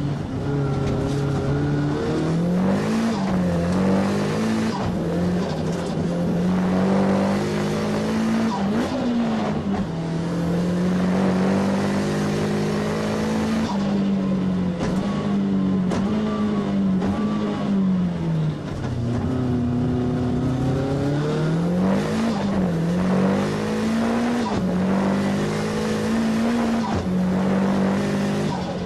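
Engine of a Nissan S15 Silvia race car at full effort, heard from inside the cabin. Its pitch climbs and drops again and again as the driver accelerates out of corners, lifts and changes gear, with a deep drop about two-thirds of the way through.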